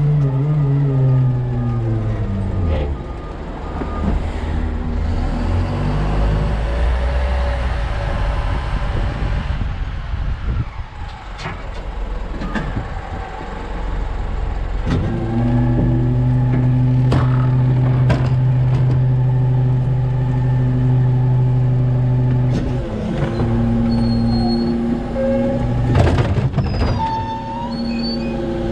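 New Way Mamba rear-loading garbage truck's engine, heard from the hopper: it winds down over the first few seconds, rumbles low, then holds a steady higher note for several seconds. Near the end a few sharp bangs come as an organics cart is tipped into the hopper.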